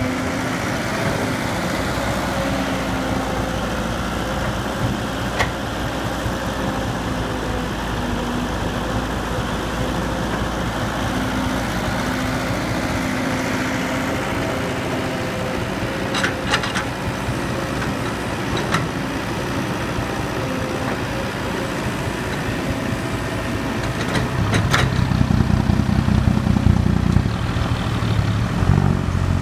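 Excavator's diesel engine running steadily, with a few brief sharp knocks. Near the end it grows louder and deeper for a few seconds as it works harder.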